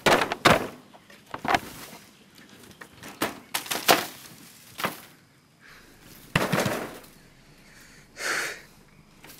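Woven bamboo walls and wooden window slats rattling and knocking as they are pushed and shaken by hand, in several separate bursts of clatter. A loud breath is heard near the end.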